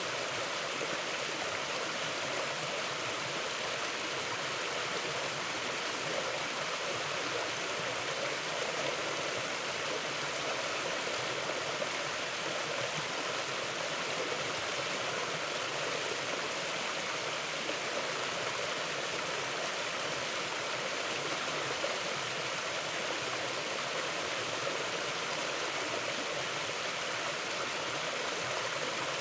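Mountain river flowing, a steady, even sound of running water with no change throughout.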